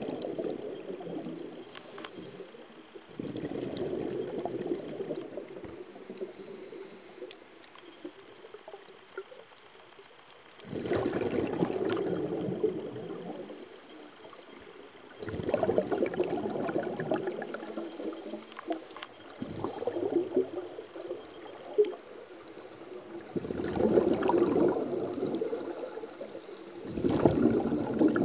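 Scuba diver's exhaled breath bubbling out of a regulator underwater, in a rush lasting two to three seconds every few seconds, with quieter pauses between breaths.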